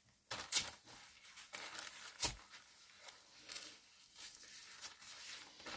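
Plastic crinkling and strap rustling as hands handle a clear plastic sensor bag and adjust an elastic abdominal belt of a sleep-study monitor. The rustling comes in irregular bursts, with two sharper, louder ones about half a second and two seconds in.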